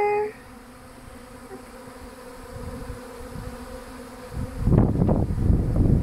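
Honey bee swarm buzzing around and into a wooden bait hive, a steady low hum. About four and a half seconds in, a loud low rumble on the microphone rises over the buzzing.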